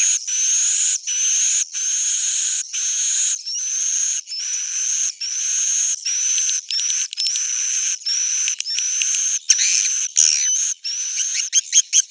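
Swiftlet calls from a 'suara inap' lure track, the roosting sound played in swiftlet houses to draw the birds to stay and nest: a run of buzzy chirps, each with a rising whistle, about two a second, breaking into short rapid chirps near the end.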